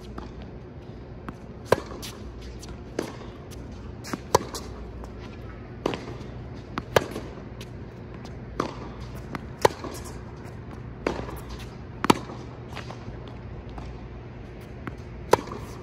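Tennis rally on a hard court: rackets striking the ball and the ball bouncing, sharp pops about once a second, some much louder than others.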